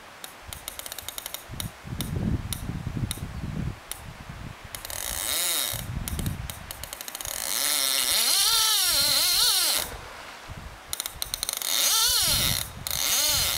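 Fly reel's click-and-pawl drag ticking, then buzzing in long runs whose pitch rises and falls as a hooked salmon pulls line off the spool; the longest run is in the middle, a shorter one near the end.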